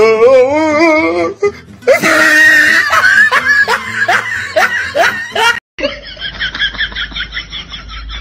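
A person laughing hard, first in a wavering peal and then in repeated bursts, for about five and a half seconds. The laughter cuts off abruptly and a quieter, quick high-pitched sound follows, pulsing about four times a second.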